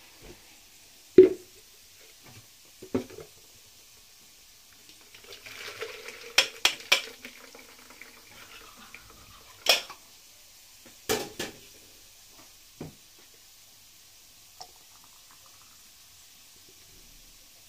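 Kitchen utensils being handled: an aluminium pot, a plastic strainer and a plastic jug knock and clink several times. In the middle, liquid is poured through the strainer for a few seconds.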